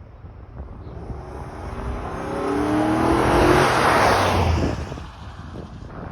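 2011 Chevy Avalanche's 5.3-litre V8 accelerating past, its engine note rising in pitch as it swells to a peak about four seconds in, then fading quickly as the truck goes by.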